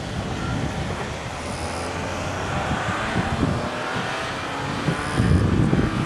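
KiHa 40 diesel railcar running in the distance, a steady low rumble. From about five seconds in, gusts of wind buffet the microphone.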